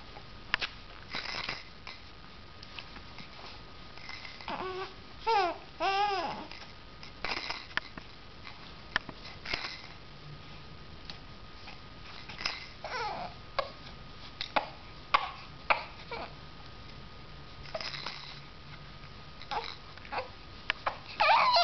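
Three-month-old baby cooing and babbling in short sing-song vocalisations that rise and fall in pitch, the loudest near the middle and near the end. Light clicks and rattles come throughout from the play-gym's hanging toys and rings as the baby bats at them.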